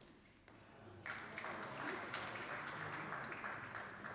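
Spectators applauding the end of a table tennis point, the clapping starting suddenly about a second in and thinning out near the end.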